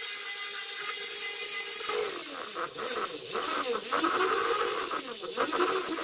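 Electric random orbital sander running on a wooden hammer handle: a steady motor whine over sanding hiss, its pitch dipping and recovering several times from about two seconds in.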